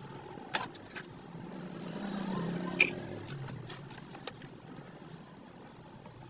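Scattered small clicks and taps of hand tools working on a phone's circuit board during a charging-jack repair, the sharpest a little under three seconds in. A low rumble swells and fades around the middle.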